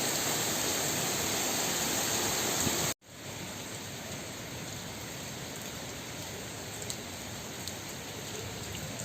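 Steady hiss of heavy rain falling on hard surfaces. About three seconds in it cuts out for an instant, then carries on a little quieter, with a few separate drops ticking.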